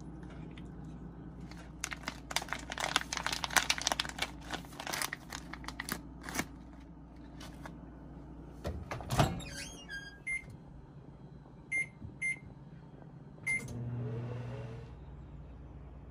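Crinkling and clattering of kitchen handling, then a single sharp knock. After that come four short, high electronic keypad beeps and a low hum lasting about a second, as a microwave oven is set and started.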